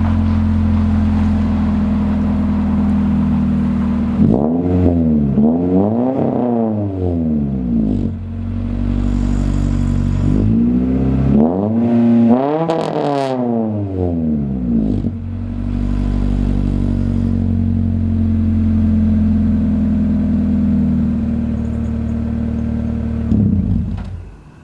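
Honda Civic D15Z1 SOHC VTEC four-cylinder running through a 4-2-1 header, no catalytic converter and a Megan Racing DS cat-back exhaust: idling, then two spells of quick throttle blips, several revs each, dropping back to idle between them. The engine sound falls away near the end.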